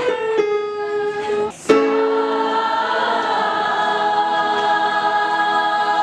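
Teenage girls' choir singing in rehearsal with long held notes. After a short break about a second and a half in, the voices come back together on sustained chords in several parts.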